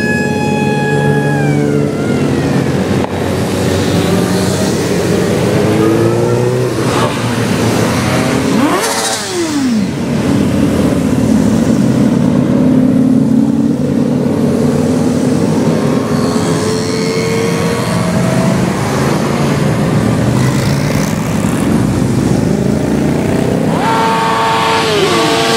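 A procession of motorcycles riding past one after another, engines running and revving, each pitch dropping as the bike goes by. In the first two seconds a high siren-like tone falls in pitch as it passes.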